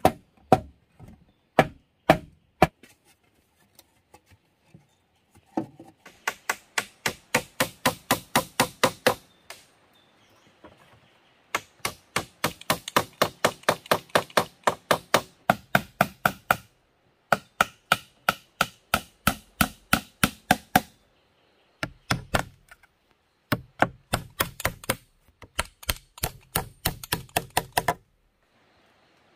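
Hammer driving nails through split bamboo into wood: a few single blows in the first seconds, then quick runs of sharp strikes about four to five a second, each run lasting a few seconds with short pauses between.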